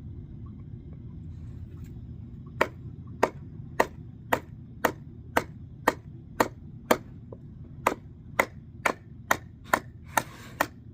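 Kindling being chopped: a run of about sixteen sharp chops, roughly two a second, starting a couple of seconds in, over a steady low hum.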